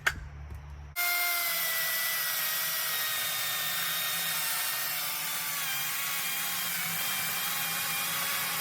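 Ryobi 40V HP brushless cordless chainsaw starting up about a second in and cutting into a large log, its electric motor and chain running steadily, with the pitch slowly sinking as it bogs under load. The cut is too deep and is probably working the battery too hard.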